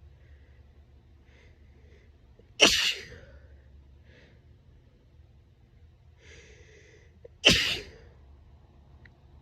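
A woman sneezing twice, about five seconds apart, each loud, sudden sneeze preceded by a catching, breathy in-breath. These are allergic hay fever sneezes from grass pollen and ragweed.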